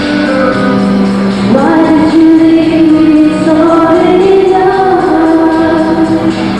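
Girls singing a song together into microphones, accompanied by an acoustic guitar. They hold long notes, and the melody climbs to a higher held note about one and a half seconds in.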